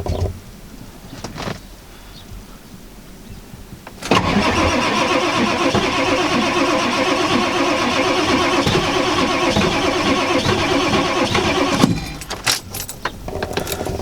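A 1995 Ford F-350's 7.3L Powerstroke turbo-diesel V8 is cranked on the starter for about eight seconds, starting about four seconds in, then stops without catching. It is a hard cold start on frosted, unplugged diesel, which the owner puts down to glow plugs not all working and the engine needing to be plugged in.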